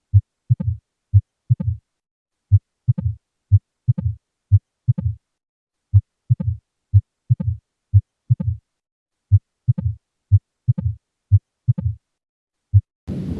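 Heartbeat heard through a stethoscope: a short first heart sound, then a second heart sound trailed by a brief fading murmur, an early diastolic murmur, repeating in pairs with a few longer pauses. A rumbling noise starts just before the end.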